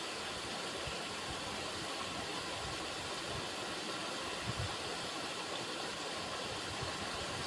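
River water running over rocks: a steady rushing and splashing, with occasional low gurgles, one a little louder about four and a half seconds in.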